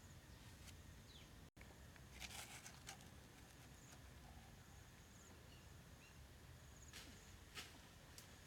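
Near silence: faint outdoor ambience with a few soft clicks, a pair about two seconds in and another pair about seven seconds in.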